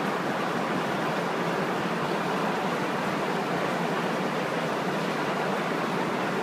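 Steady, unchanging rushing noise of aquarium water circulation and aeration, with air bubbling at the tank's surface.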